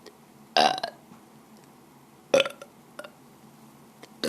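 A woman burping: two loud, short burps about two seconds apart, with a faint third one after them.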